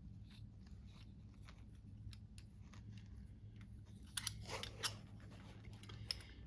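Faint clicks and scrapes of a small tool and hard parts as an RC crawler wheel is unscrewed and taken apart, with a cluster of louder clicks about four seconds in.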